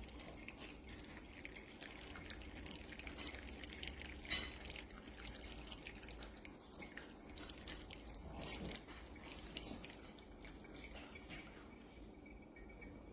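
Coffee dripping through an OXO single-serve pour-over brewer into a mug: faint, irregular drips with a few sharper ticks, over a low steady hum.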